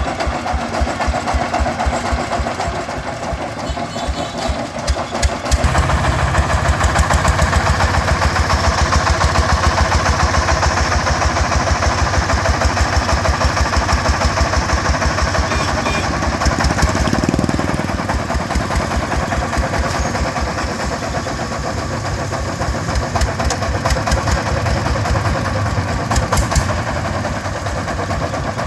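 Single-cylinder diesel engine of a công nông farm truck chugging in a steady, even beat. It revs up and gets louder about five and a half seconds in, as if working under load, then eases off somewhat near the middle.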